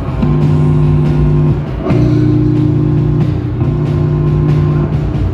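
Live band playing loud through amplifiers: guitar and bass holding heavy, distorted chords that change every second or two, with a drum kit hammering underneath.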